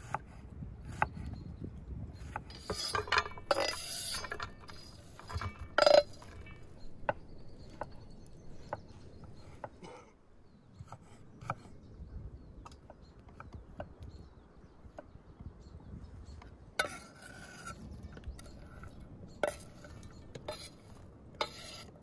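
Kitchen knife slicing onions on a wooden cutting board: the blade taps the board in a steady rhythm of about two cuts a second. A few louder rustles and clinks break in between.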